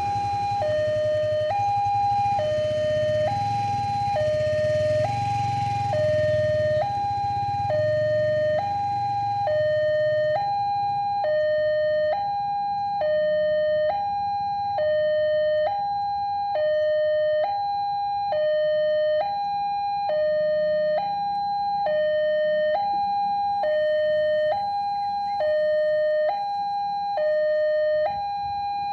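Electronic railway level-crossing alarm sounding its warning, alternating steadily between a higher and a lower tone. A low rumble under it fades out about a third of the way in.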